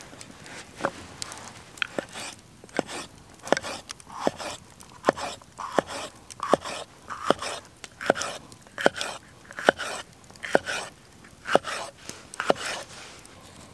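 Knife slicing a red bell pepper on a wooden chopping board. It makes about fifteen even cuts, roughly one every 0.8 seconds. Each cut is a crisp crunch through the pepper, ending in a knock of the blade on the board.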